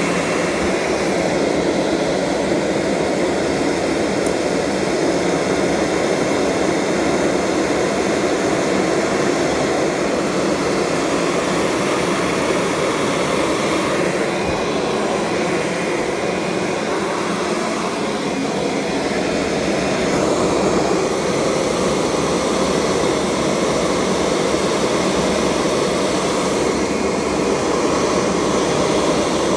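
Kirby Sentria II upright vacuum cleaner running steadily over carpet, its motor and airflow making a constant noise with a faint high tone, as it picks up cat hair.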